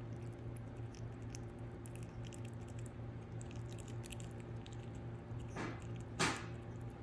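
Prairie dog chewing a snack held in its paws: a steady run of small quick clicks. Two short bursts of noise come about five and a half and six seconds in, the second the loudest sound.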